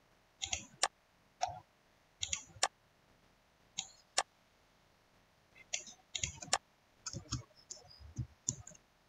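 Computer mouse clicking in short, irregular clusters of sharp clicks, with quiet gaps between them.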